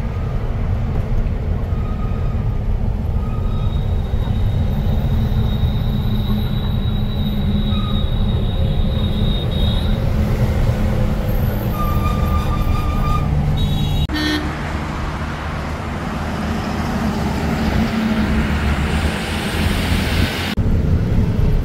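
Steady low engine and road rumble of a moving truck, heard from the cab, with a few brief high tones over it like traffic horn toots. The sound changes abruptly twice, about two-thirds through and near the end.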